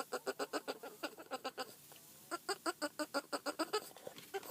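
An animal giving a rapid, even series of short pitched calls, about seven a second, breaking off briefly about two seconds in and then carrying on.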